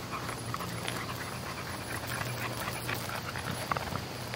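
Pocket bully dog panting, mixed with irregular footsteps on the leafy forest trail.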